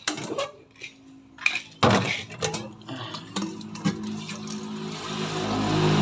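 A few clinks of crockery and a spoon, then, from about two seconds in, liquid pouring steadily into a cup, growing louder toward the end.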